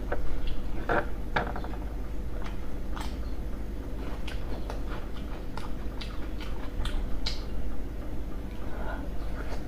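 Close-miked chewing of a soft steamed dumpling: wet mouth smacks and little clicks in an uneven run, thickest about a second in, over a faint steady hum.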